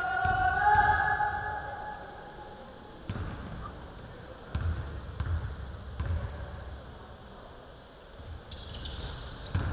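Basketball bounced on a hardwood gym floor: a few separate dribbles under a second apart in a free-throw routine. A voice calls out at the start, and a sharper knock comes near the end.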